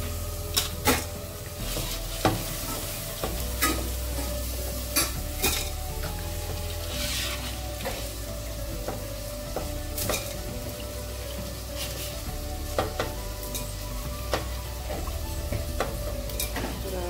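Pieces of cleaned field crab being swished and rinsed by hand in a pot of water: steady splashing and sloshing, with sharp clicks of crab shell against the aluminium pot now and then, the loudest near the start.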